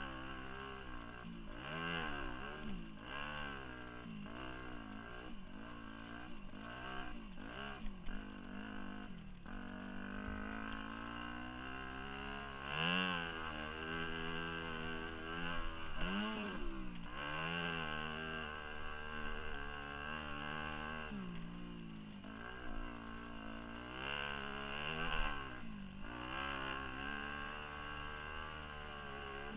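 2002 Yamaha YZ250F dirt bike's four-stroke single-cylinder engine revving up and down over and over under riding load, with quick rises and falls about once a second at first, then longer pulls from about nine seconds in.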